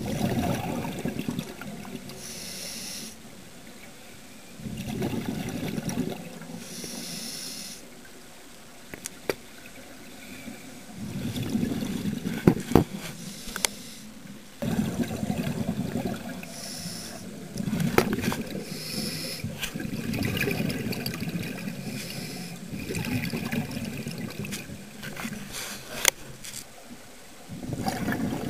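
Scuba diver breathing through a demand regulator underwater: a short hiss on each inhalation alternates with a few seconds of rumbling, bubbling exhaled air, over several breaths. A few sharp clicks are scattered among them.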